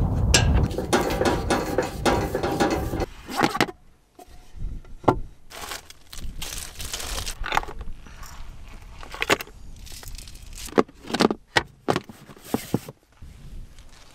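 Handling and rummaging noises: for about the first three seconds a dense run of clicks and rattles over a steady rushing noise, then scattered clicks, knocks and plastic rattles as food is taken out of a plastic storage bin and a portable fridge.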